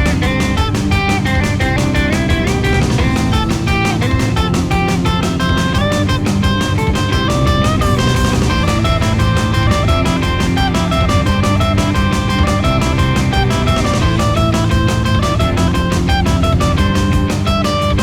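Background music: guitar-led band music with drums and a fast steady beat.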